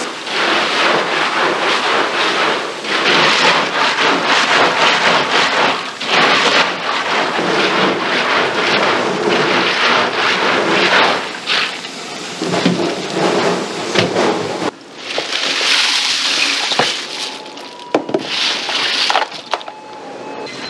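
Water splashing and running in a stainless-steel sink as live clams are tipped from a mesh bag into a plastic basket and stirred by hand, the shells clattering against one another. There are a few sharper clicks in the second half.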